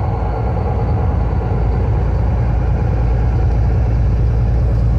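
Steady low rumble of a motor vehicle's engine and road noise.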